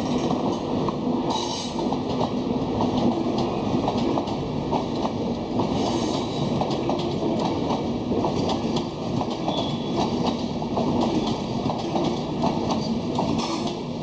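A train running over the tracks: a continuous rumble with rapid clicking of wheels over rail joints, and a few brief high wheel squeals.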